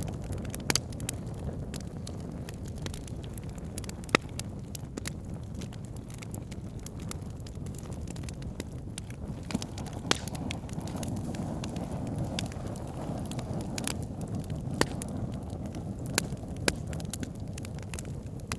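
Wood fire burning in a fireplace: a steady low rushing sound from the flames with irregular sharp crackles and pops from the burning logs, a few of them louder, about four seconds in and near the end.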